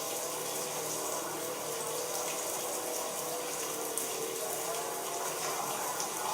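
Steady rain falling: a continuous, even hiss with no breaks.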